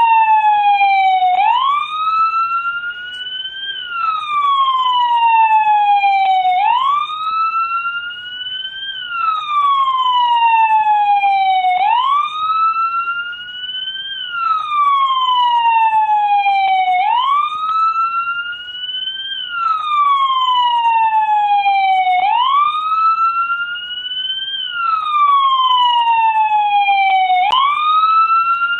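American police car siren sounding its wail: one tone climbing quickly, then falling slowly, repeating about every five seconds without a break.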